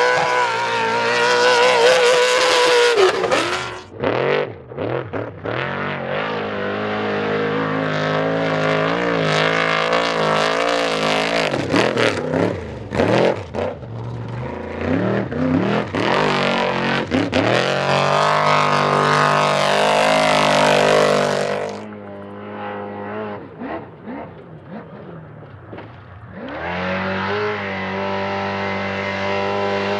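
Off-road race engines of trophy trucks and Class 1 buggies running hard through dirt turns, revving up and easing off as each vehicle passes. The sound changes abruptly several times, with a quieter, more distant engine note a little past the middle before a loud, steady engine note returns near the end.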